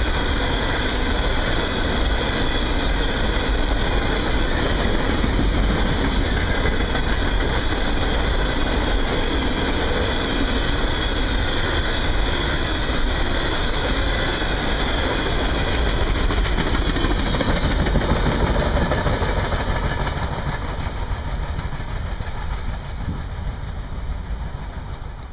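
Long train of empty coal hopper cars rolling past, a steady noise of steel wheels on the rails that fades away over the last few seconds as the end of the train passes.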